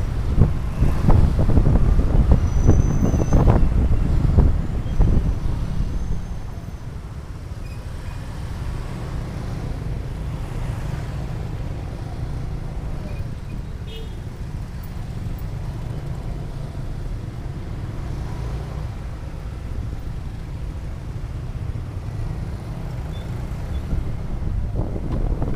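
Road and wind noise while riding a motorcycle in traffic: wind buffets the microphone heavily for the first several seconds, then settles into a steady low rumble.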